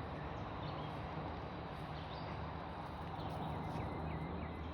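Steady outdoor background noise with a low hum, and faint short, high chirps repeating every so often.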